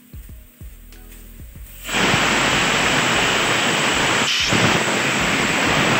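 Pressure cooker whistle blowing as the cooker of dal reaches pressure: a sudden loud, steady hiss of escaping steam starting about two seconds in, with a short break near the middle. Before it, light knife taps on onion.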